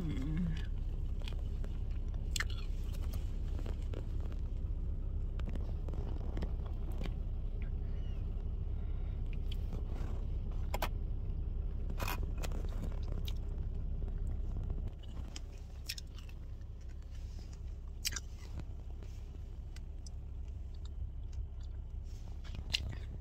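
Steady low rumble inside a car's cabin, easing a little about two-thirds through, with occasional sharp crunches from chewing crunchy dried anchovies (dilis).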